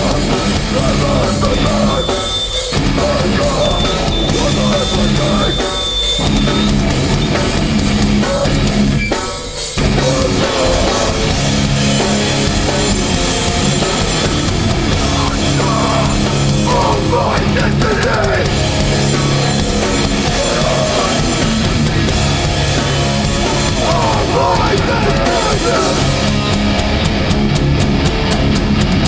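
A live hardcore band playing heavy, distorted guitars, bass and drums. It runs through stop-start hits with short breaks in the first ten seconds, then settles into a steady, driving riff.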